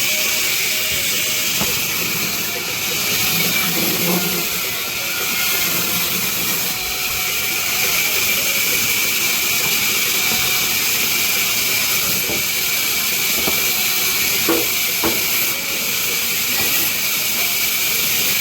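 Industrial vertical band saw cutting through a heavy wooden log: a steady high hiss from the blade in the timber, with a couple of short knocks late on.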